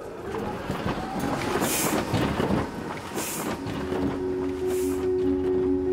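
Printing press machinery clattering, with a rising whoosh at the start and hissing swells about every second and a half. Soft sustained music tones come in about four seconds in.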